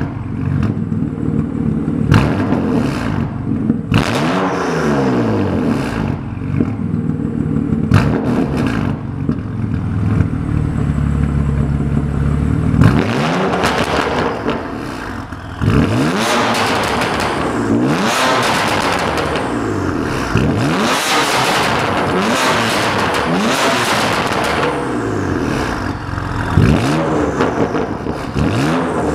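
The BMW M3 F80's twin-turbo straight-six is being revved while standing still, through a Fi Exhaust valvetronic catback with catless downpipes. The engine is blipped up and down repeatedly, with sharp cracks as the revs drop. A rev is held steady for a few seconds about a third of the way in, then a quicker series of sharp blips follows.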